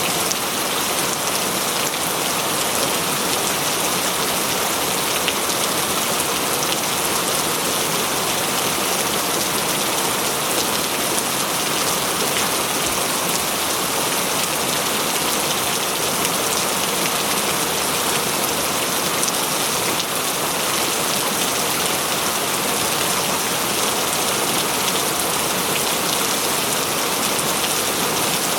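Steady rain falling in a forest, a dense even hiss of many drops pattering on leaves and surfaces.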